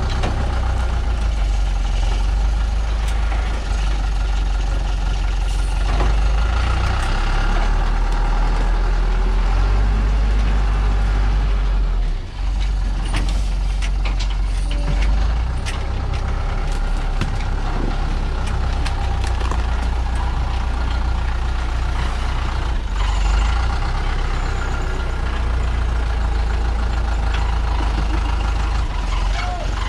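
Log truck's engine running hard and steadily, labouring on a steep loose-dirt slope, with its revs dipping briefly about twelve seconds in.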